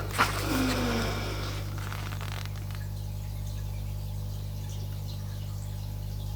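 A single sharp knock, then a steady low hum.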